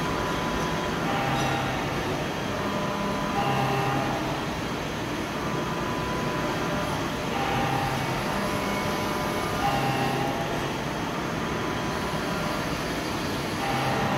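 IBARMIA ZV 50/3000 vertical machining centre milling a metal part under flood coolant: a steady hiss and rumble of the cutter and coolant spray, with a short humming tone that comes and goes every two to four seconds.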